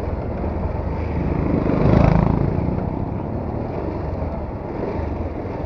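Bajaj Pulsar 220F motorcycle being ridden at low speed and slowing, its single-cylinder engine running under a steady rumble of wind on the microphone. The sound swells louder briefly about two seconds in.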